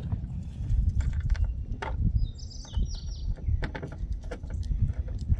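Low rumble of wind on the microphone with scattered clicks and knocks, and a short bird chirp about two seconds in.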